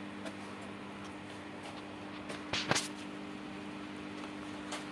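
A steady low mechanical hum, with two or three sharp knocks about two and a half seconds in and a small click near the end.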